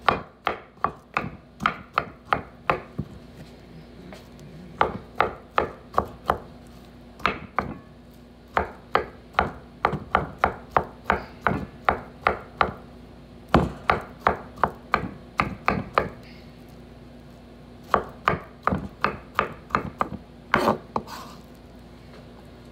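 Kitchen knife chopping avocado on a wooden cutting board: runs of quick knocks of the blade on the board, about three a second, with short pauses between the runs.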